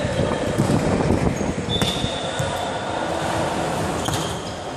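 A volleyball thudding on a sports-hall floor and a couple of short, high sneaker squeaks, over a steady echoing hall rumble.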